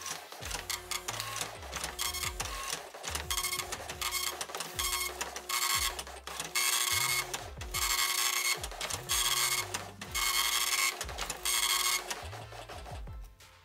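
Dot-matrix printer printing text and ASCII art line by line: the print head makes separate passes about once a second, the later ones longer, and stops shortly before the end.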